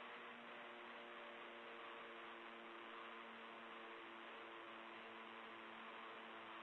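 Near silence: a faint steady hiss with a low electrical hum of several steady tones that drop in and out.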